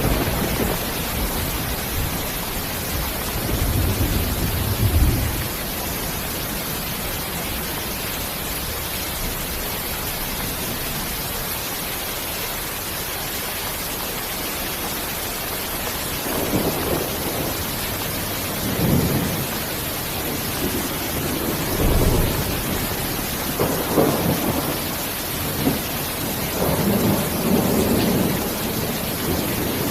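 Steady rain with thunder: a low rumble about four seconds in, then a run of rumbling rolls through the second half.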